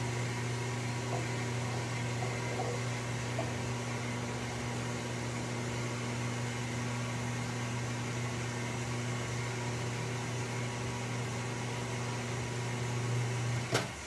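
Microwave oven running while it heats sugar syrup, a steady electrical hum that cuts off with a click near the end.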